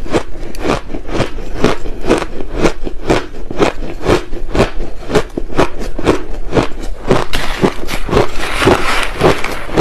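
Crushed ice being chewed close to the microphone: a steady crunching about three times a second. Near the end a spoon scrapes and scoops through the crushed ice in a plastic pot.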